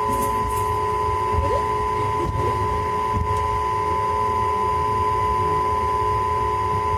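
Passenger train rolling slowly, heard from inside the coach: a low rumble with a steady hum over it.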